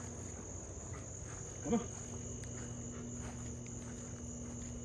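Night chorus of crickets, a steady high chirring, over a steady low hum. About two seconds in there is one short, pitched, rising call.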